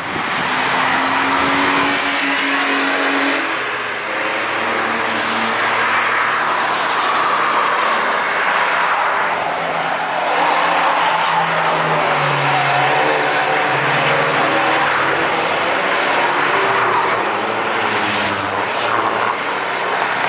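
Several road cars driving past on a race track one after another, engines running hard, their pitch rising and falling as they accelerate and lift through the corners.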